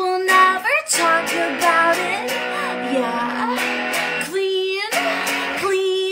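A woman singing over a strummed electric guitar, a solo performance of her own pop-rock song, with a couple of longer held notes in the second half.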